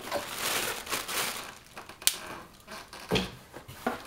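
Plastic air-cushion packing bags crinkling and rustling as hands push through them in a cardboard box, with a sharp click about two seconds in and a dull knock about three seconds in.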